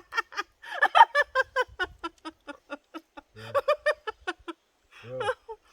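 A person laughing hard in long runs of rapid, high-pitched "ha-ha" pulses, pausing briefly for breath a few times, to the point of tears.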